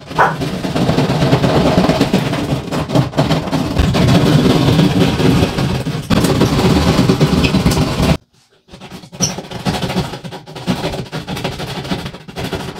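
Drywall jab saw sawing back and forth through drywall, a dense rasping of quick strokes. The sawing stops for about half a second after about eight seconds, then goes on somewhat quieter.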